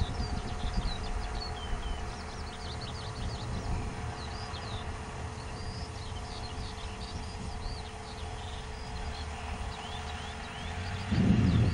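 Small songbirds chirping and trilling in quick, high calls, over a steady low rumble of wind on the microphone. A louder low rumble sets in near the end.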